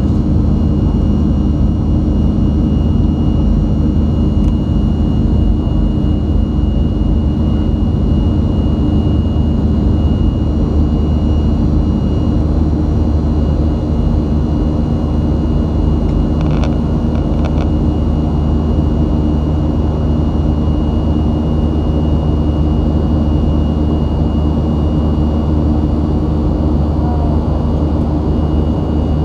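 Boeing 737-500's CFM56 turbofan engines heard inside the cabin during the climb after takeoff: a steady low drone with a thin high whine over it.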